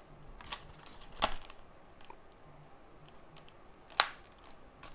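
A few small clicks and taps of things being handled on a workbench, the sharpest about four seconds in, over a faint low hum.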